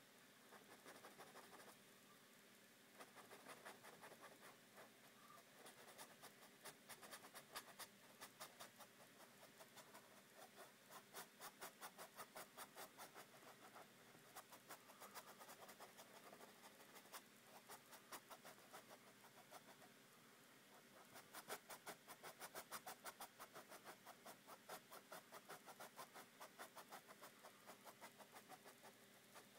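Faint, quick back-and-forth scratching of a paintbrush scrubbed over a painted surface, several strokes a second in runs, with short pauses: dry-brush scumbling over paint.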